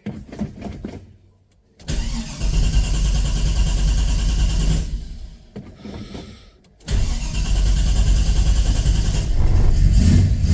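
Holden 308 V8 starting through newly welded extractors and exhaust: it fires up about two seconds in, runs for about three seconds and dies, then catches again about seven seconds in and keeps running.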